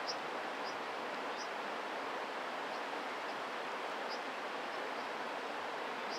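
Steady rushing of stream water, over which a brown dipper gives several short, sharp, high calls at irregular intervals.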